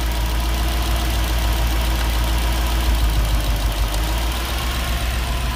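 Nissan VK45DE 4.5-litre V8 idling steadily, with the cylinder that had been dead now firing again after a dirty contact on its fuel injector plug was cleared.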